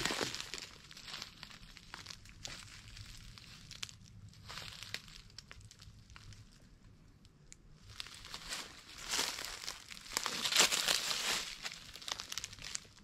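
Dry vegetation rustling and crackling in irregular bursts, loudest about ten to twelve seconds in.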